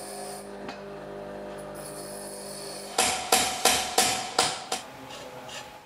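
A steady hum, then from about three seconds in, about six ringing metal-on-metal hammer blows, roughly three a second, as new knife sections are riveted onto a combine side knife.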